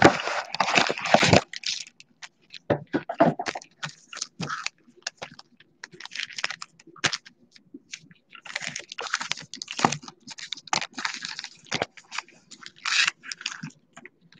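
A cardboard box of wrapped trading-card packs being torn open, then the packs pulled out and stacked by hand. The tearing of the box is loudest in the first second or so, followed by irregular crinkling, scraping and sharp clicks of the wrappers and cardboard.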